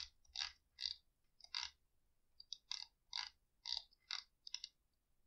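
About a dozen short, irregularly spaced clicks from working a computer's mouse and keyboard while scrolling through a log, faint in a small room.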